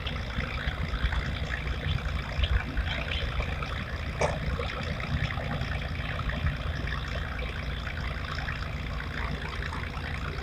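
River water trickling and lapping steadily, a busy watery noise over a low rumble, with one sharp click about four seconds in.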